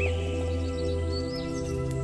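Calm new-age background music of sustained, held chords over a low drone, the chord changing about a second and a half in. Faint bird chirps sound over it near the start.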